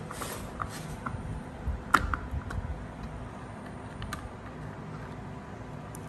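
Scattered light clicks and taps as a screwdriver and fingers work on the plastic housing and copper coil of an opened induction cooktop, with one sharper click about two seconds in, over a low steady background.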